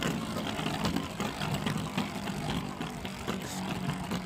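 Beyblade Burst spinning tops whirring in a battle, with a steady hum and frequent sharp clicks of the tops striking each other and the stadium wall. One is a 3D-printed, free-spinning top that makes hard attack hits.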